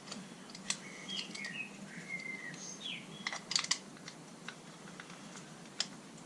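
Small sharp clicks and taps of a screwdriver and copper wire on the plastic light switch's terminals as a wire is pushed in and the terminal screw tightened. The clicks are scattered, with a quick cluster about three and a half seconds in.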